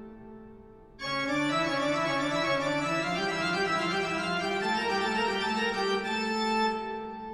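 Background instrumental music: held, organ-like chords, with a louder new chord entering about a second in and fading out near the end.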